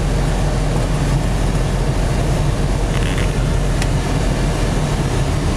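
Steady engine and road noise heard inside a car's cabin as it drives along a snow-covered road, tyres running through the snow.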